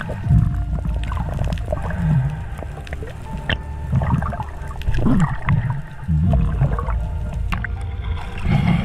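Water rushing and gurgling around an underwater action camera, a heavy low rumble with irregular surges and a few sharp clicks, with a music track held faintly underneath.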